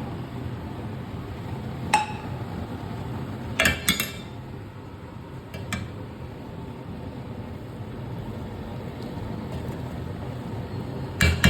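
Kitchen utensils clinking and knocking against metal cookware: one sharp clink about two seconds in, a quick cluster around four seconds, another near six, and a burst of several near the end, over a steady low background noise.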